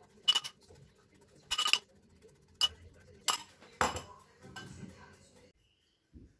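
A metal spoon clinking sharply against crockery about five times as dressing is spooned over a salad, then softer scraping and rustling that stops about five and a half seconds in.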